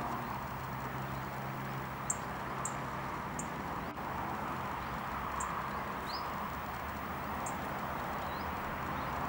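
Bees buzzing among flowering plants, heard as a steady low hum that is strongest in the first few seconds, over a steady outdoor hiss. A few short, high bird chirps sound through it.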